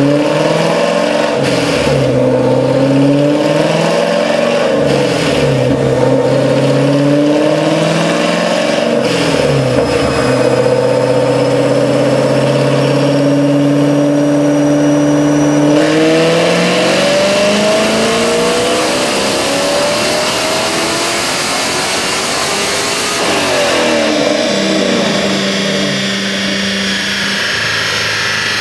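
Chevrolet C7 Corvette's LT1 V8, fitted with Stage 1 cylinder heads and a small camshaft, running on a chassis dyno. The engine revs up and down a few times and holds steady, then a little past halfway makes a long pull that rises in pitch for about seven seconds. It then lifts off, drops in pitch and settles to a steady lower speed near the end.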